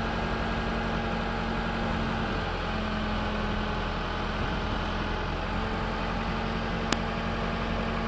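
Backhoe's diesel engine running steadily while the bucket arm is moved slowly, its hum shifting slightly in pitch a couple of times. A single sharp click near the end.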